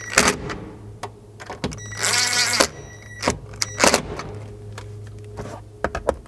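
Cordless drill driving a sun visor mounting screw into a car's headliner, with one short whir of the motor about two seconds in. Sharp plastic clicks and knocks come from handling the visor and the drill.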